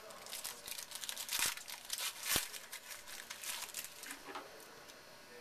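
Foil wrapper of a 2011 Donruss Elite Football trading-card pack being torn open and crinkled in the hands: a run of irregular crackles, loudest in the middle, dying away a little after four seconds in.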